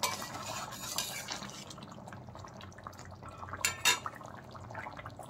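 Flat metal spatula knocking and scraping against a metal kadai as chopped coriander is stirred into a simmering fish curry, with two louder clacks just before four seconds, over the soft steady hiss and bubbling of the curry.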